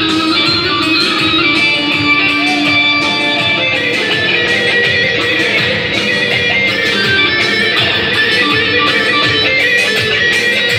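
Live Kurdish halay dance music from a wedding band: a fast, amplified plucked-string melody over a steady drum beat.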